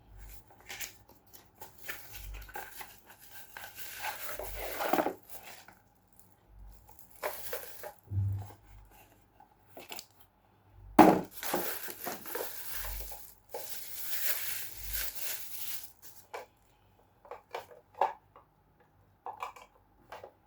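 Plastic packaging crinkling and tearing as a small plastic mini drawer is unwrapped, in several spells with light clicks and knocks of handling between.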